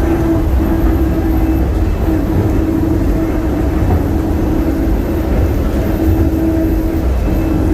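Inside a DFW Skylink people-mover train running along its guideway: a steady low rumble with a constant motor hum.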